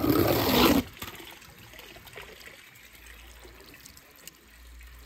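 Water splashing in a shallow plastic tub around a small die-cast toy car, one short burst of under a second at the start.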